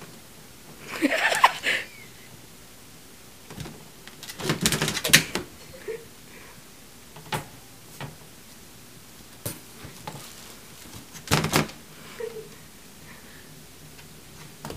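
A puppy and a cat tussling among plastic bags: three short bursts of rustling and knocking, about a second in, around four seconds in and about eleven seconds in, with a few light knocks between.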